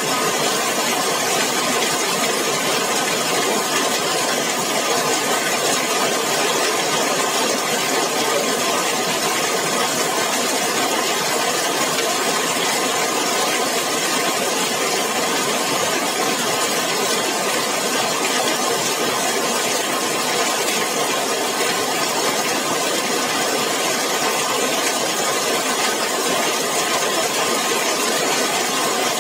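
Heavy rain falling steadily on a zinc sheet roof, a dense, even hiss of drops with no letup.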